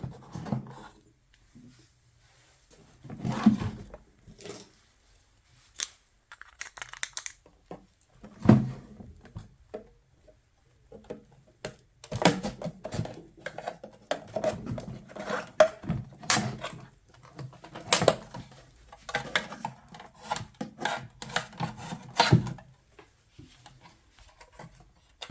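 Plastic clicks, knocks and scraping as the front panel of a home theatre unit is handled and prried open, a few isolated knocks at first, then a dense run of clicks through the second half.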